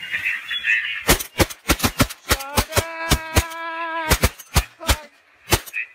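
Rapid volleys of shotgun fire, more than a dozen shots in quick clusters, as several hunters shoot at a flock of ducks passing overhead. A long, steady pitched call sounds for about a second in the middle of the shooting.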